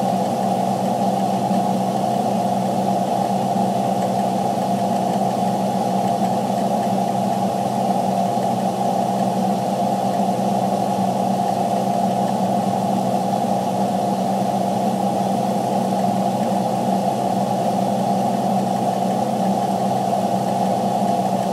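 Steady drone of a Freightliner truck running, heard from inside the cab, unchanging in level and pitch throughout.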